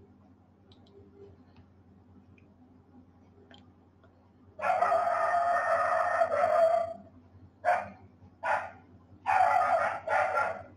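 An animal's calls: one long call of about two and a half seconds starting about halfway in, then four shorter calls in quick succession.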